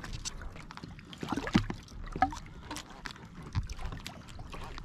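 Water lapping and sloshing against the hull of a 2015 Hobie Revolution 13 fishing kayak, with many irregular clicks and knocks and a few short squeaks, while a fishing reel is cranked to wind a fish up from deep water.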